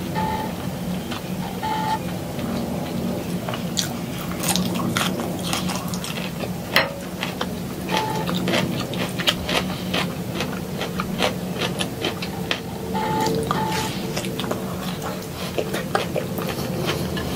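Close-miked chewing and mouth sounds of someone eating broccoli and tomato slices by hand: many small irregular wet clicks and smacks over a low steady hum.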